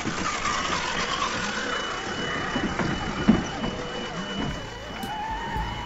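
Electric drive motors and gearboxes of radio-controlled scale crawler trucks whining as they drive through mud, the pitch rising and falling with the throttle. A single sharp knock about three seconds in.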